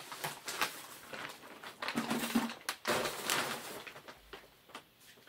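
Plastic packaging rustling, with clicks and knocks, as a motorcycle exhaust system is handled, loudest in two stretches about two and three seconds in.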